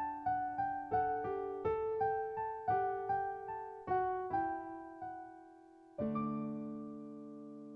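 Soft background piano music: a run of single notes, about three a second, that fades out around five seconds in, then a chord struck about six seconds in and left to ring.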